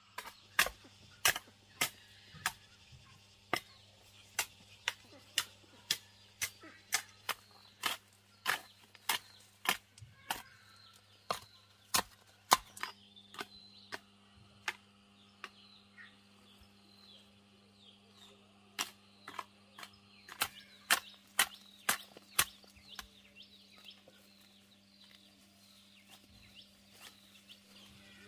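A series of sharp knocks, about one or two a second, coming thickly at first and thinning out in the second half, over faint high chirping.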